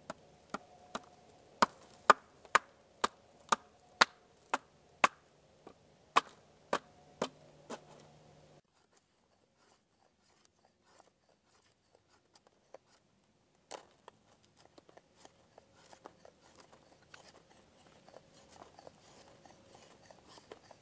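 Sharp wooden knocks, about two a second for some eight seconds, as a stick is hammered with a wooden baton. After a break, a quieter run of small scrapes and cracks as a hatchet blade shaves curls down a stick to make a feather stick for fire tinder.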